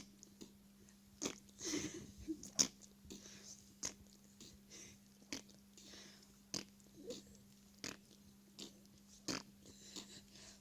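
Faint, wet smacking and clicking mouth sounds, sharp and irregular, about one a second, with a longer squelchy stretch about two seconds in, over a steady low hum.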